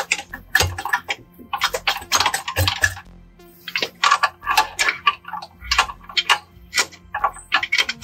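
Hand ratchet clicking in quick runs of ticks as bolts are turned on an engine, with a short pause about three seconds in.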